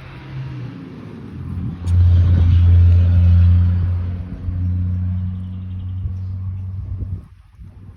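Motor vehicle engine giving a loud, steady low hum that holds one pitch. It swells about two seconds in and cuts off abruptly about seven seconds in.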